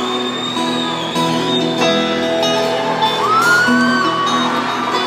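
A live folk-rock band opens a song with plucked acoustic guitar strings, amplified through a concert PA in a large hall. A high whistle rises and falls over the music about three seconds in.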